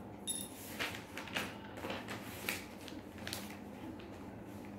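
A handful of faint, short clicks and rustles, scattered and irregular, over a low steady hum.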